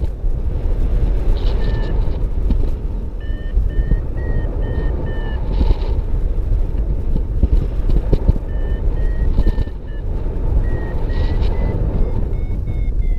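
Paragliding variometer beeping in runs of short, evenly spaced electronic beeps, several to a second with pauses between runs, the pitch rising a little near the end: the tone that signals the glider is climbing in lift. Heavy wind rush on the microphone underneath.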